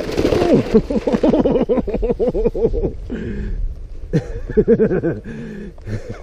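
Fat bike tyres crunching through thin ice into water right at the start, then a man laughing in quick bursts, a long run and a shorter one later.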